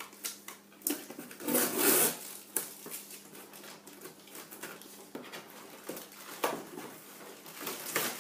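Scissors blade slicing along the packing tape on a cardboard box, with the cardboard flaps scraping and rustling. The noises come in irregular strokes with a few sharp clicks, the loudest about one and a half to two seconds in.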